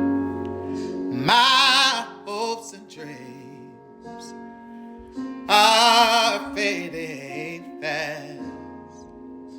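Gospel song intro: held keyboard chords with a singer's wordless vocal runs, sung with heavy vibrato in two or three phrases.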